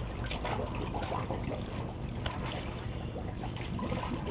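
Water sloshing and trickling in a plastic kiddie pool as a German Shepherd dips its muzzle into the water, going after bubbles on the surface.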